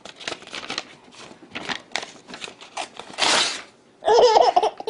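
A sheet of paper rustling in someone's hands, then torn in one long rip about three seconds in, followed by a baby laughing near the end.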